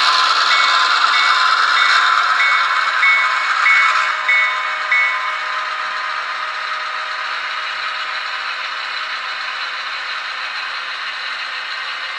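HO-scale Athearn GP38-2W's sound decoder plays its diesel engine sound and rings the locomotive bell about every half second; the bell stops about five seconds in. The train of model freight cars rattles over the track, slowly fading as it moves away.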